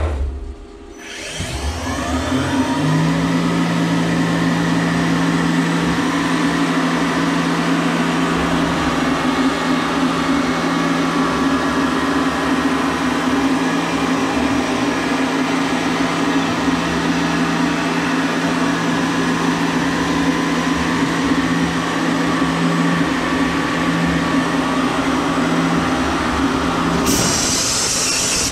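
Tormach 770M CNC mill's spindle spinning up with a rising whine about a second in, then running steadily with a constant tone while a 90-degree chamfer mill cuts dry along the edges of a 6061 aluminum part. A brief high hiss comes in near the end.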